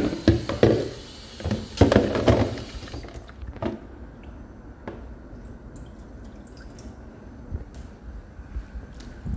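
Water running and dripping in a stainless-steel kitchen sink, with knocks and clatter, for about the first three seconds. Then a quieter steady hiss with a few faint clicks.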